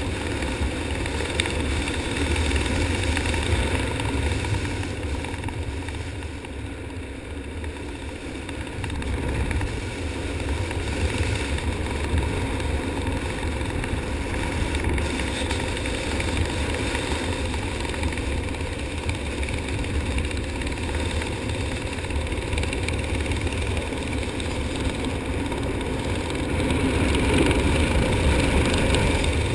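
Steady wind rumbling and buffeting across a helmet camera's microphone during parachute canopy flight, dipping slightly a few seconds in and rising a little near the end.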